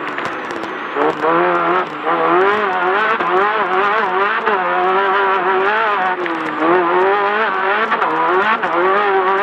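Class 10 off-road race car's engine running hard under racing, its revs rising and falling again and again as the throttle is worked, with frequent knocks and rattles.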